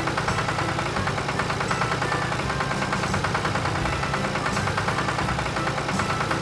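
A cartoon sound effect of a heavy vehicle's engine running steadily, with a rapid, even pulsing chug.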